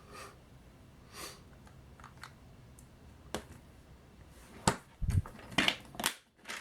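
Light clicks and taps of small screwdriver bits being handled and put back in their kit. There are a few soft rustles early on, a sharper click with a low thump around five seconds in, and a short run of clicks near the end.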